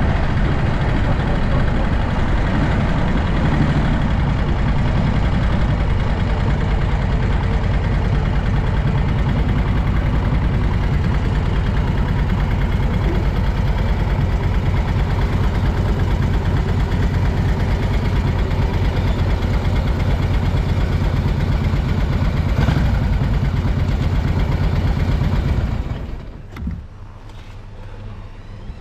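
A 1937 Matchless Model X's side-valve V-twin engine running steadily as the motorcycle is ridden. The sound drops away sharply near the end.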